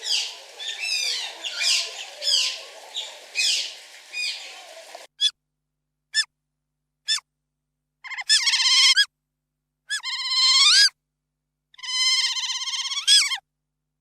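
Otters calling: a run of quick, high, falling chirps, then, after a cut, three short squeaks and three longer wavering squeals of about a second each.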